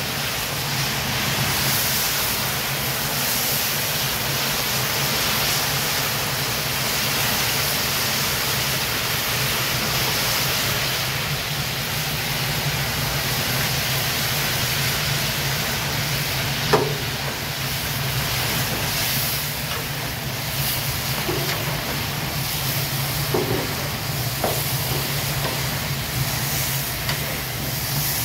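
Meat browning in deep hot oil in a cast-iron kazan for Uzbek pilaf: a loud, steady sizzle and hiss over a steady low hum. A few knocks of the metal skimmer against the pot come in the second half, the sharpest about 17 seconds in.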